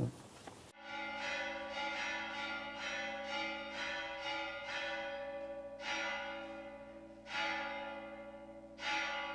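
Bells ringing: a quick run of strikes, two to three a second, for about four seconds, then three slower strikes about a second and a half apart, each note ringing on.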